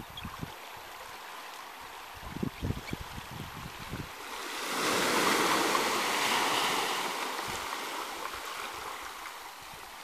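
Small waves washing up a sandy beach. One wave swells up about halfway through, breaks and runs up the sand, then fades. A few short low gusts of wind hit the microphone in the first half.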